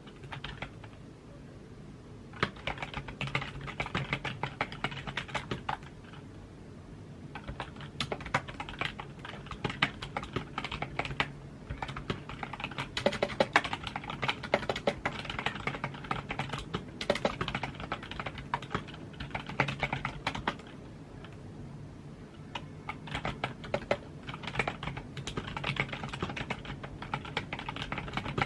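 Typing on a computer keyboard: quick runs of key clicks, with brief pauses about six seconds in and again a little past twenty seconds.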